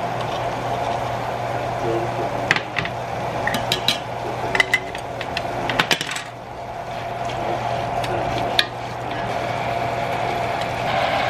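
Knife blade prying at spice containers, the lid of a metal spice tin and the plastic shaker cap of a glass herb jar, giving a series of sharp metallic clicks and taps in the middle and one more click later, over a steady background hum.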